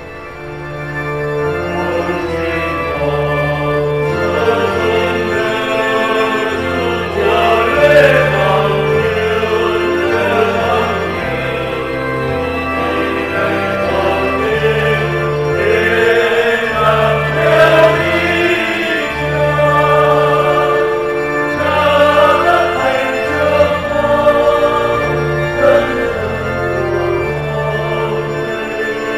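A hymn sung in Vietnamese to organ accompaniment: held organ chords over a walking bass, with singing voices coming in about seven seconds in.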